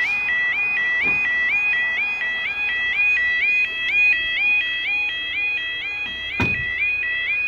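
Level crossing yodel alarm sounding continuously, a rapid repeating two-tone warble, warning that a train is approaching. Two brief knocks, about a second in and near the end.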